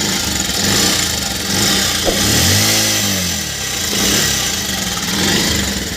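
Bajaj Pulsar 125 single-cylinder engine running, with the throttle blipped about two seconds in so the pitch rises and falls back. Its noise comes from a worn-out timing chain, which turns out to be badly worn when the engine is opened.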